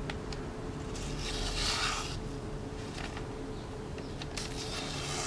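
A thin-edged W2 steel knife slicing through phone book paper in two soft, hissing strokes, the first about a second in and the second near the end. The paper test checks that the edge is still keen after chopping.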